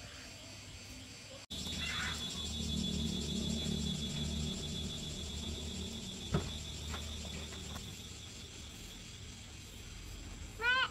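Insects chirring steadily over a low rumble, with one short animal call near the end, the loudest sound.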